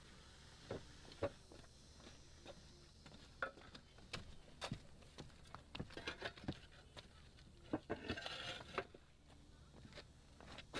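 Concrete roof tiles clinking and knocking as they are handled and set in place: scattered, irregular light taps. A brief hiss comes about eight seconds in.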